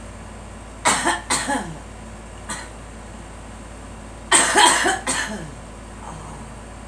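A girl coughing: two or three coughs about a second in, a single short one in the middle, then a louder fit of several coughs just past four seconds. She is coughing to clear congestion that is blamed on allergies and sinuses.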